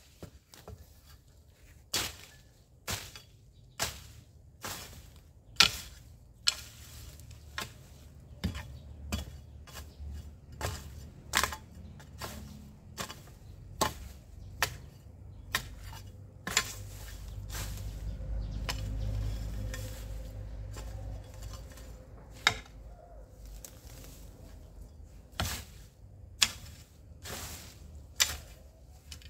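A garden hoe chopping into soil and weeds: sharp strikes at roughly one a second, some much louder than others. A low rumble swells and fades in the middle.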